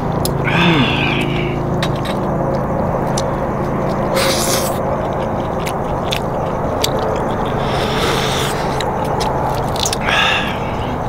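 A person eating a grilled oyster from the half shell: slurping and chewing, with scattered clicks from the shell in gloved hands. A few short noisy slurps come about 4, 8 and 10 seconds in, over a steady low hum.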